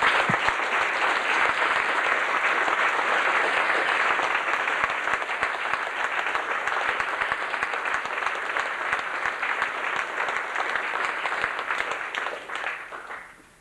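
Audience applauding: a long burst of clapping that starts suddenly and dies away over the last second or so.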